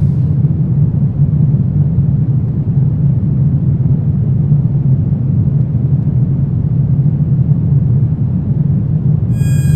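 Steady low rumbling drone of a horror ambience track, even and unchanging. Just before the end, high eerie ringing tones begin to come in over it.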